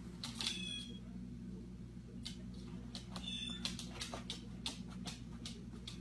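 A small parrot crinkling and dragging a sheet of paper towel, giving a rapid run of papery crackles, with brief high squeaks about half a second in and again a little after three seconds. A steady low hum runs underneath.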